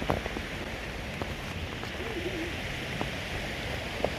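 Steady rush of water, with a few faint clicks and a brief faint wavering tone about halfway through.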